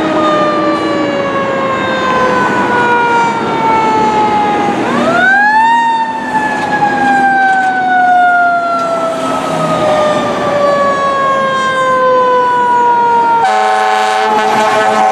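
Fire engine's mechanical siren slowly winding down, spun back up to a high pitch about five seconds in, then coasting slowly down again. A loud horn blast cuts in near the end.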